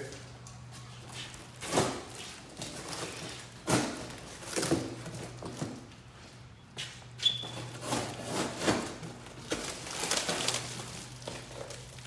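Plastic and packing-tape wrapping on a large parcel being cut, crinkled and pulled at: irregular rustles, crackles and sharp knocks, several of them loud, over a low steady hum.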